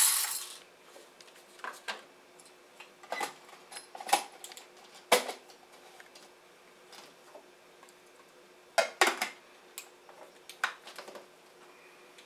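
Coffee beans rattling as they pour into a stainless steel grinder cup at the start. Then come scattered clicks and knocks as the lid and cup are handled and twisted into place on the grinder, with sharp knocks about five seconds in and a louder double knock about nine seconds in.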